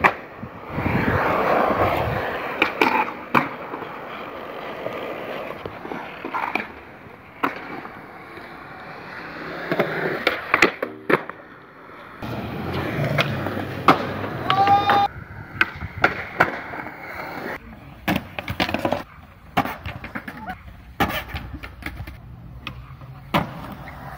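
Skateboard wheels rolling on smooth concrete, broken many times by sharp clacks of the board popping and landing. A short squeal rings out about halfway through.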